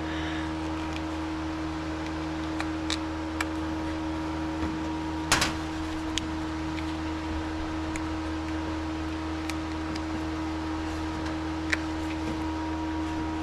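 Steady mechanical hum from a running appliance or machine, with scattered light clicks and one sharper click about five seconds in.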